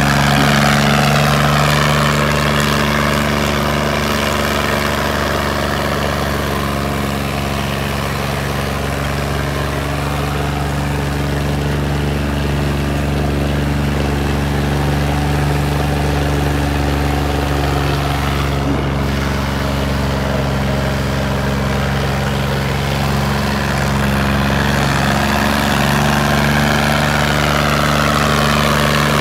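Sonalika DI 35 tractor's diesel engine running hard and steady under heavy load as it pulls a disc harrow through soft ploughed soil, pouring black smoke.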